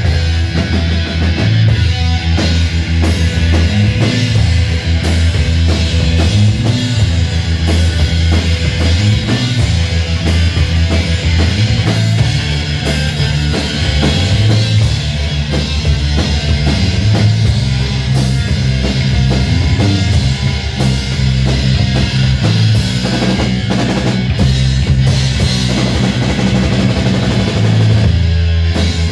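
Live rock power trio playing an instrumental passage: electric guitar, electric bass and drum kit together, loud and steady, with a strong bass line under regular drum beats.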